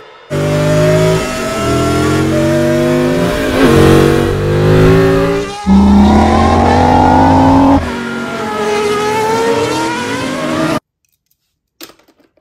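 Race car engines revving and passing at speed in an animated film's sound track: several high engine notes climbing and falling over one another, then cutting off suddenly near the end.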